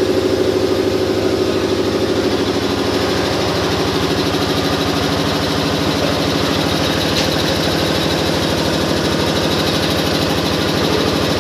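Electric air compressor running steadily with a fast, even pulse, feeding a paint spray gun, with the hiss of the spray over it.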